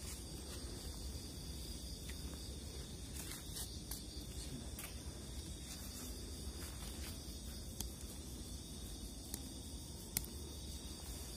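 Steady night chorus of crickets and other insects, a constant high chirring over a low rumble, broken by a few sharp clicks, the loudest about ten seconds in.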